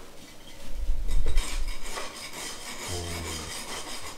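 A wooden screed stick scraping across damp sand-and-cement deck mud in quick repeated rasping strokes, after a low thump about a second in.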